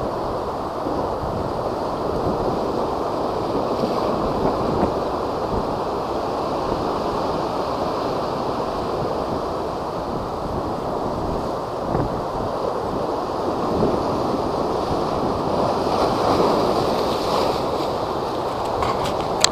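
Heavy typhoon-driven waves surging and breaking in a steady rush, with wind buffeting the microphone.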